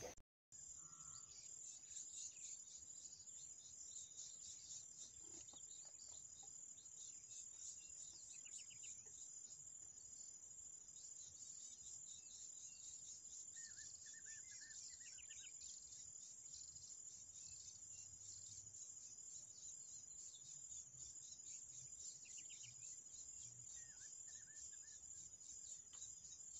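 Faint, steady high-pitched trilling of insects, with a few short, soft bird chirps now and then.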